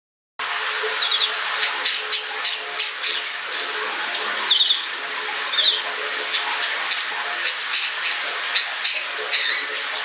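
Shower water running as a steady hiss, with a budgerigar calling over it in many short, high chirps and warbles; the budgie is responding to the sound of the running water.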